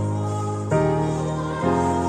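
Slow instrumental background music: sustained chords that change about once a second.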